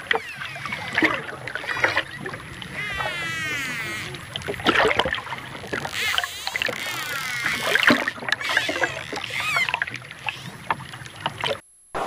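Dolphins whistling and clicking: many rising and falling whistles, a fast wavering whistle about three seconds in, and scattered sharp clicks, over a low steady rumble. The sound cuts off shortly before the end.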